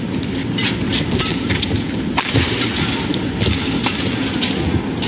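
Badminton rally: a quick, irregular series of sharp racket strikes on the shuttlecock, over the steady low noise of an arena crowd.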